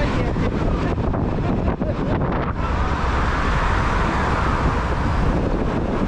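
Steady wind rush on the microphone with road noise from a moving car, swelling louder for a couple of seconds about halfway through.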